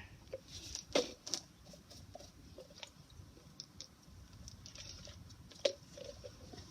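Faint, scattered clicks and taps of PVC pipe fittings being handled, with a sharper click near the end.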